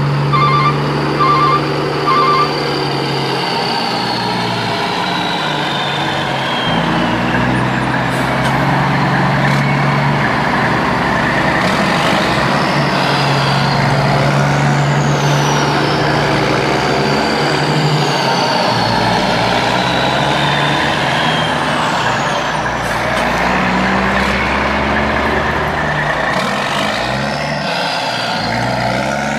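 Large truck engine running steadily, its low note rising and falling in level. A run of short beeps sounds in the first two seconds, and several slow falling high whines pass through.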